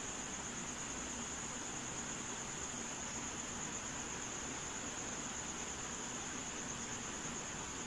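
Room tone: a steady hiss with a continuous high-pitched, finely pulsing whine or trill.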